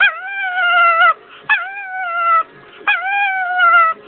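Chihuahua 'talking': three drawn-out whining calls of about a second each, each opening with a quick rise in pitch and then held, sagging slowly.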